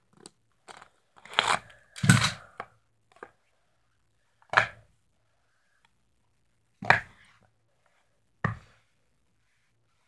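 Green plastic Speed Stacks sport-stacking cups being handled and set down, giving a run of short irregular knocks and clacks, several close together at first, then single ones a couple of seconds apart.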